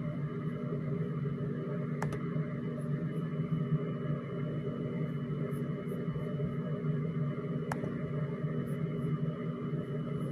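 Steady droning hum in a small room, with two faint clicks, one about two seconds in and one near eight seconds.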